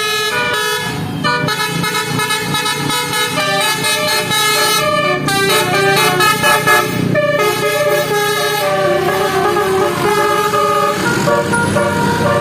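Tour bus's basuri musical horn (a 'telolet' horn) playing a tune of stepped notes, with a few short breaks between phrases.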